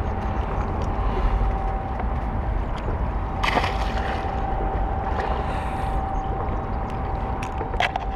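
Steady low rumble of road traffic and wind on the microphone, with a faint steady hum throughout. A short rustling noise comes about three and a half seconds in and a sharp click near the end.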